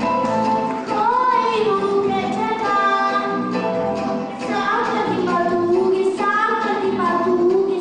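A young girl singing a pop song into a microphone over a recorded backing track played through a loudspeaker.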